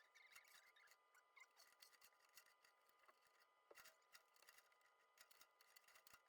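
Near silence: faint room tone with scattered soft ticks.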